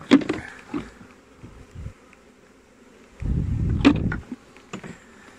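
Honey bees buzzing over an opened hive. Sharp clicks come in the first second, and about three seconds in there is a loud second-long low rumble with a click in it.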